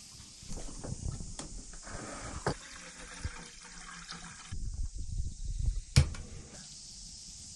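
A few small clicks as a camping gas stove is put together. Then water pours from a plastic bottle into a metal cooking pot for a few seconds. Later comes one sharp metallic clank as the pot is set down on the stove.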